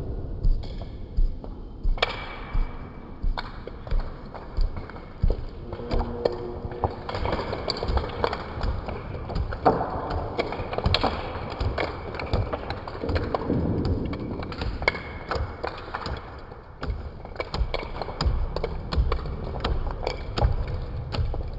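CNC router machining a decorative partition panel: a steady faint high whine under continuous cutting noise, with many clicks and knocks, and regular thumps about every two-thirds of a second in the first few seconds.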